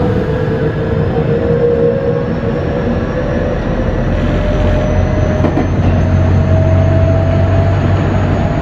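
JR West 207 series electric train running, heard from its motor car. The Mitsubishi VVVF inverter and traction motors give a whine that rises steadily in pitch as the train gains speed, over a steady low rumble of wheels on rail.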